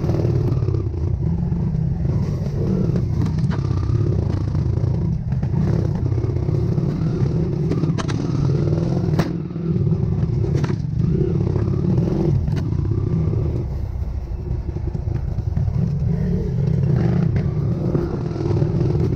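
Trail motorcycle engine running steadily at low revs over rough ground, with a few sharp knocks and clatter scattered through.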